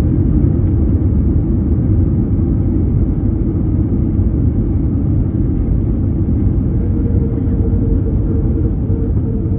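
Airbus A321neo cabin noise heard at a window seat during the landing rollout, with the ground spoilers up: a steady low rumble of the wheels on the runway and the engines, easing slightly. A faint steady hum comes in about seven seconds in.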